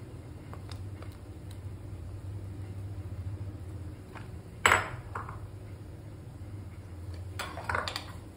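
Kitchen clatter as chunks of yellow pumpkin are tipped from a plate into a pan of simmering broth: a sharp knock about halfway through and a short cluster of knocks near the end. A steady low hum runs underneath.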